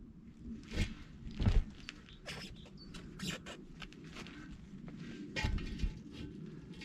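Hand-handling noises from fitting a truck tyre: irregular knocks, thumps and rustles as the rim tape and inner tube are pushed into place on the split rim, the loudest thumps about a second and a half in and again near six seconds.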